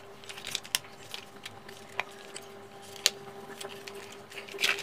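Plastic toy car parts being handled and pressed together, giving a few small sharp clicks and light rustles, over a faint steady hum.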